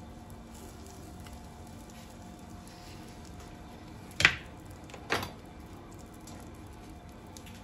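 Two sharp knocks about a second apart near the middle, the first louder, as kitchen items are set down off to the side. Under them is a faint steady kitchen hum.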